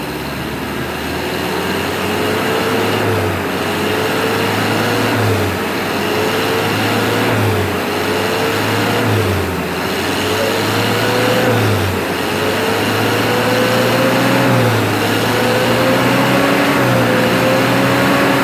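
Mitsubishi L300's diesel engine revved up and let back down over and over, its pitch climbing slowly and dropping sharply every two to three seconds. It is being free-revved to check whether it still blows black smoke from the tailpipe.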